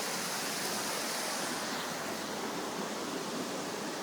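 Steady rushing of a waterfall and stream, an even hiss of falling water that turns slightly duller about two seconds in.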